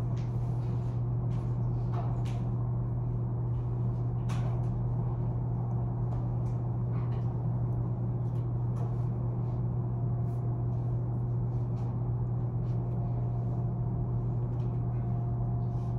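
Classroom room tone: a steady low hum, with a few faint short clicks and taps scattered through it.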